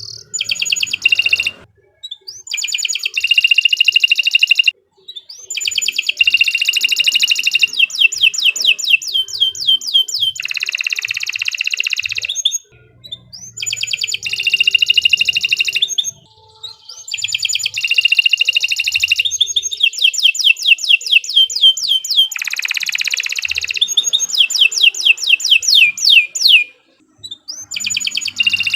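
Domestic canary singing a long song of fast trills, rapid runs of repeated notes and held tones, in phrases of a few seconds each with short pauses between.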